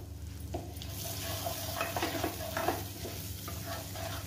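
Turmeric, cumin and green chillies frying in hot oil in a kadhai. The sizzle picks up about a second in as a spoon stirs and scrapes the spices around the pan.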